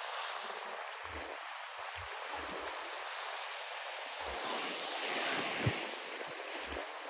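Black Sea surf washing on the shore as a steady hiss of water, with one wave swelling and breaking a little past the middle, where there is a brief thump. Wind buffets the microphone now and then.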